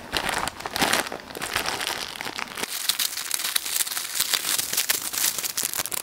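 Plastic bubble-wrap packaging crinkling and rustling as it is pulled open by hand, a steady run of fine crackles.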